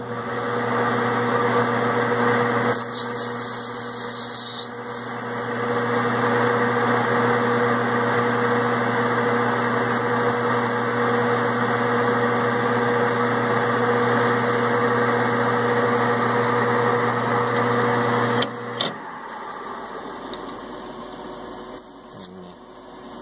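Small metal lathe running with a steady hum while the tool turns down a Delrin rod, with a brief higher hiss about three seconds in. The lathe stops abruptly about 18 seconds in.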